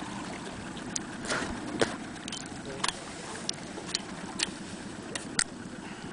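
Campfire crackling: irregular sharp pops and snaps, about a dozen of them, over a steady background noise.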